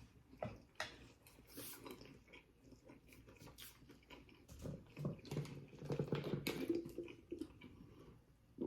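Faint chewing and smacking of food, with scattered small mouth clicks that come thickest around the middle of the stretch.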